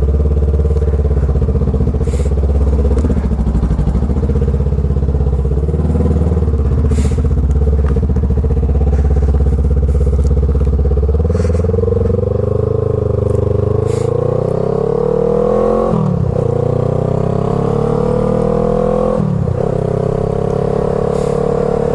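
Honda Rebel 500's parallel-twin engine breathing through a Radiant Shorty GP slip-on exhaust, heard while riding. It runs steadily for about ten seconds, then pulls with a rising note, which drops twice near the end as the rider shifts up a gear.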